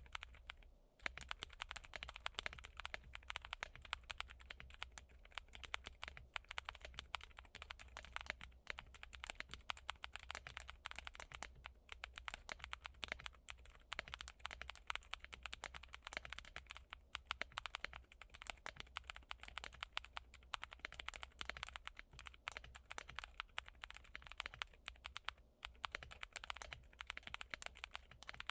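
Mechanical keyboard fitted with Gazzew U4Tx box-stem switches being typed on continuously: fast, irregular key presses and bottom-outs. The typing starts about a second in.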